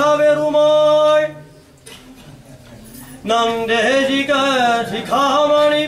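A priest chanting a kattiyam, a Sri Vaishnava temple recitation in praise of Ramanuja: one male voice holding long steady notes, breaking off about a second and a half in, then resuming with rising and falling melodic phrases.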